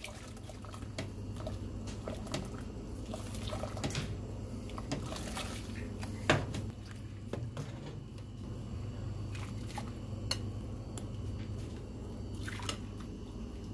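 A thick egg-and-sour-cream mixture poured slowly from a glass bowl into a steel pot of soup while a metal ladle stirs it: liquid sloshing and dripping, with light clicks of the ladle against the pot, the sharpest about six seconds in. A steady low hum runs underneath.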